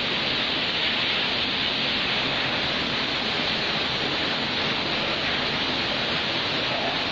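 Cyclone wind and heavy rain: a steady, even hiss that holds the same level throughout.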